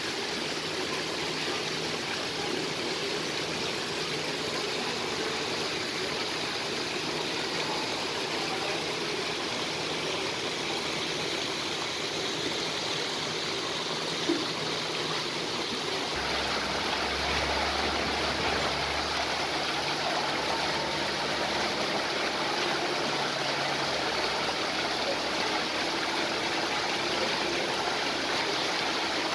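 Artificial rock waterfall giving a steady rush and splash of falling water, with a low hum coming in for a few seconds past the middle.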